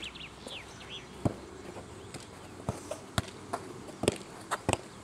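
Football being kicked and touched between two players: a string of sharp thuds, about seven, more often in the second half. Faint bird chirps near the start.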